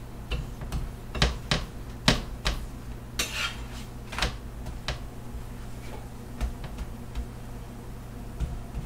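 Metal spatula clicking and scraping against a flat griddle (tawa) while pressing and turning a dhal puri: a quick run of sharp clicks with one longer scrape about three seconds in, then only a few more clicks.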